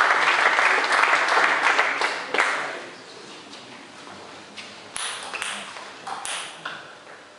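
Spectators applauding, fading out over the first two or three seconds, then a few sharp clicks of a table tennis ball about five to six seconds in as a serve is readied.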